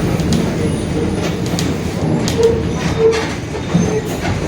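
Mercedes-Benz OF-1721 Bluetec 5 bus on the move: steady engine and running rumble with light body rattles and clicks. A humming drone swells twice around the middle, the sign of a droning ('roncando') differential.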